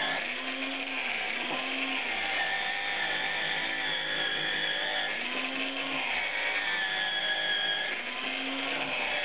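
Angle grinder with an abrasive disc grinding a steel handlebar tube: a steady motor whine with grinding noise, wavering slightly in pitch as the disc is pressed onto the metal and eased off.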